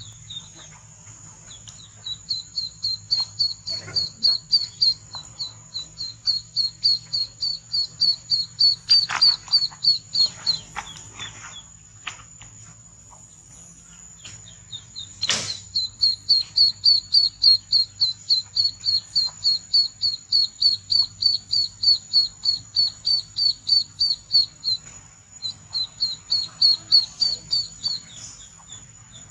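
Ducklings peeping: long runs of rapid, evenly spaced high peeps, about three or four a second, with a break around the middle, over a steady thin high whine. A single sharp click comes about halfway through.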